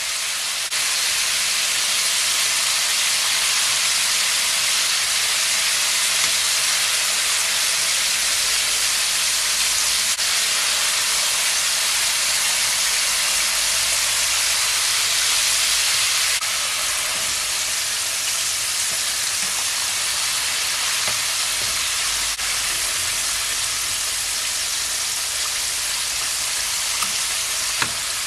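Steady, loud sizzle of flour-coated chicken pieces deep-frying in hot oil in a pot, about halfway through frying.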